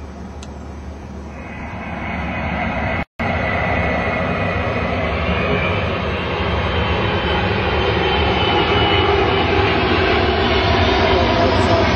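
Boeing C-17 Globemaster III's four turbofan jet engines running as it comes in low to land: a steady jet roar with a high whine, growing louder toward the end. The sound cuts out for a split second about three seconds in.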